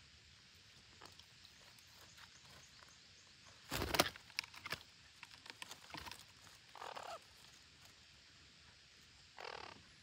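Parakeets at a tree-hole nest: a loud, sudden scuffling burst about four seconds in, then scattered clicks and scratches, and two short harsh calls, one near seven seconds and one near the end.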